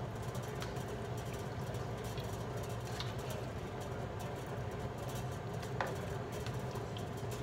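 A slotted plastic spoon stirring chicken pieces in liquid in a nonstick frying pan, with a few light clicks as it knocks the pan, over a steady low hum.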